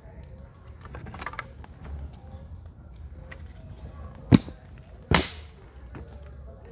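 Wood fire burning in a ground fire pit with a faint crackle, broken by two loud, sharp wood cracks a little under a second apart, about four seconds in.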